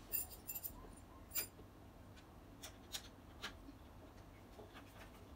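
Faint metallic clicks and clinks of a hand tool turning the bolts that join a bentwood chair frame. A cluster of bright, briefly ringing clicks comes in the first second and a half, then lighter clicks follow every half second or so.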